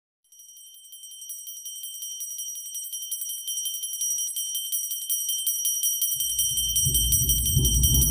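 Cinematic intro music: a high ringing bell-like tone over rapid ticking, slowly growing louder, with a deep rumble joining about six seconds in and swelling.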